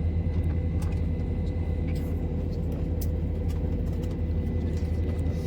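Steady low drone of an airliner cabin, with a faint steady high whine above it.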